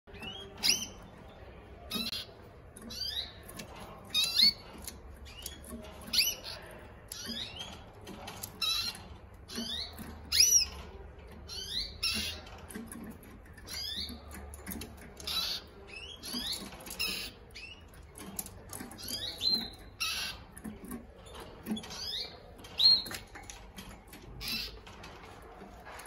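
Caged domestic canaries calling: short, sharp chirps with quick pitch sweeps, about one or two a second, some much louder than others.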